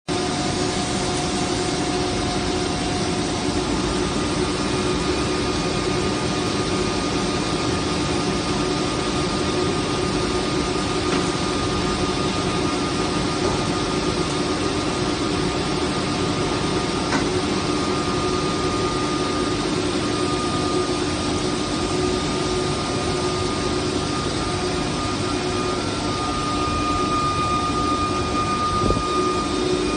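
Steady drone of a running pipe extrusion line's machinery, with several constant hum tones over an even mechanical noise.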